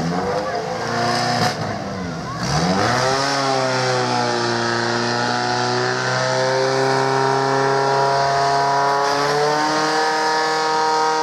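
Portable fire pump's engine revving hard, its pitch climbing sharply about two and a half seconds in and then holding at high, steady revs while the pump drives water to the jets.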